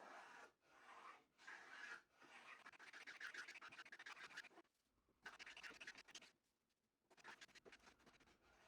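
A hand tool scraping across wood in about four long strokes with short pauses between them.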